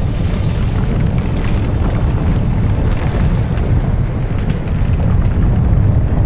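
Loud, steady deep rumble, a dramatic film sound effect for a supernatural fire and shaking.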